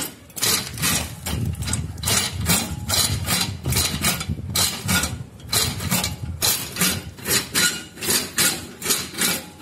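Foot-step power generator's spring-loaded steel plate being pressed down repeatedly, driving its rack and pinion and spur gears: metallic clanking and gear rattle, about two knocks a second.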